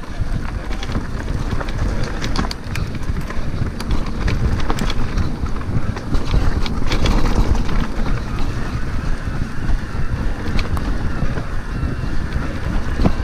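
Wind buffeting a helmet-mounted action camera's microphone while riding an electric mountain bike on a trail, with scattered clicks and rattles from the bike and tyres over the ground.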